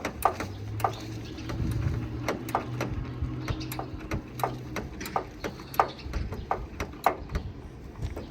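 Irregular sharp metallic clicks and clinks, a few each second, over a low steady hum that fades about five seconds in.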